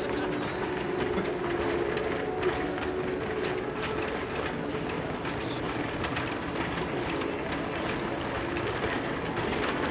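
Aerial fireworks going off continuously: a dense, steady crackle of many small pops and bangs, with one sharper bang about two and a half seconds in, over faint crowd voices.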